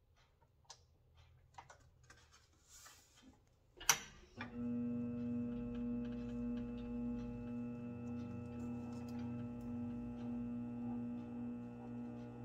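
A few light handling clicks, then a sharp click about four seconds in as the electric drive motor of a powered bead roller switches on. The motor then runs with a steady hum at a constant pitch while the stencil dies roll a border into the sheet-metal sign.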